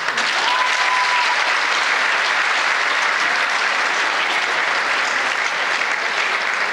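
Crowd applauding in a large gymnasium, the clapping starting at once and holding steady. A brief steady tone sounds about half a second in.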